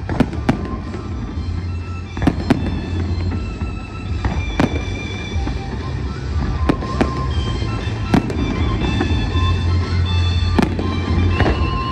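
Fireworks display, aerial shells bursting: sharp bangs come every second or so over a constant low rumble.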